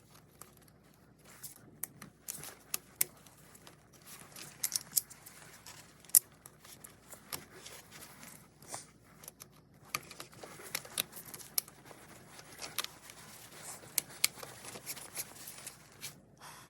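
Scattered small metallic clicks and scrapes with light rustling, from hand tools working a hose clamp on the coolant pipe.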